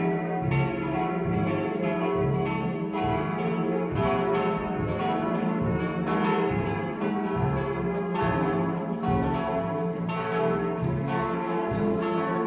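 Church bells ringing a funeral peal: several bells struck one after another in a steady, overlapping succession, a little more than one stroke a second, their tones ringing on into each other.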